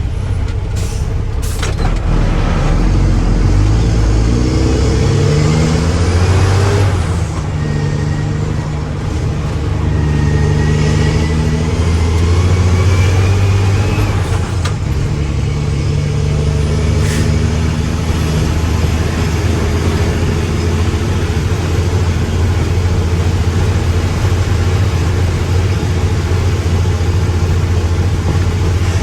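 Mack truck's diesel engine revving up in three rising pulls, then running steadily at high revs, with a few brief sharp sounds in between.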